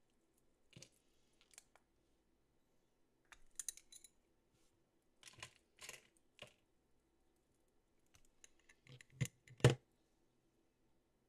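Light plastic clicks and taps from handling a small nail powder palette with a clear hinged lid, long gel nails tapping on its plastic case, in scattered little groups, with two sharper clicks near the end.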